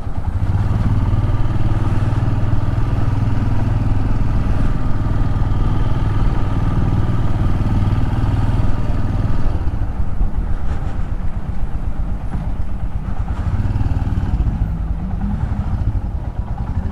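Royal Enfield Himalayan's single-cylinder engine running steadily while the motorcycle is ridden.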